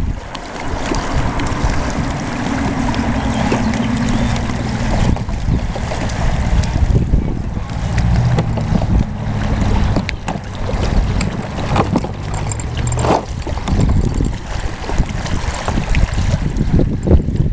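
Wind buffeting the microphone over a low steady hum, with several sharp clicks and knocks in the second half as the folding kayak's plastic hull panels are bent and fastened together.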